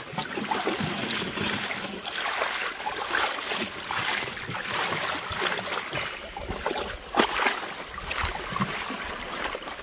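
Water splashing and trickling as a fishing net is shaken out and its catch of fish and mud is rinsed into a plastic basket in shallow water, with one louder splash about seven seconds in.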